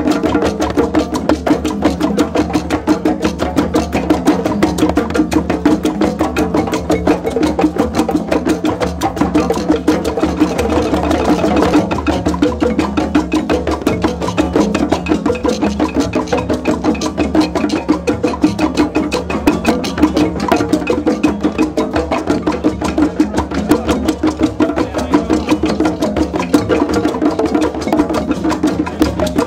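Drum circle of djembes and other hand drums played together, a dense, steady rhythm of many overlapping strokes.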